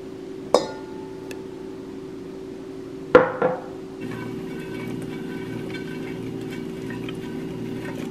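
Sharp clinks on a stainless steel mixing bowl, one about half a second in and a louder pair about three seconds in, each ringing briefly. Then a spatula scraping crispy pan-fried chickpeas out of a nonstick skillet, the chickpeas rattling into the metal bowl as a run of small ticks and clinks.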